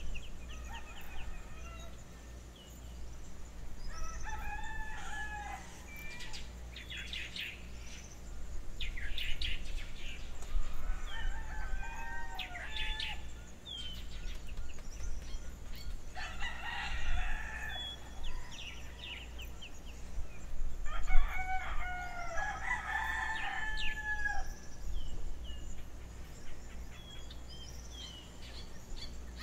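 Rooster crowing several times, a few seconds apart, with small birds chirping high in the background in a morning outdoor recording.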